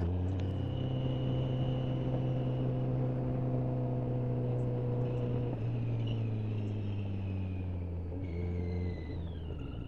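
Motorcycle engine running steadily at cruising speed, heard from on board the bike, with a thin high whistle over it that the riders attribute to their Triumph. Near the end the engine note drops and the whistle glides lower as the rider eases off.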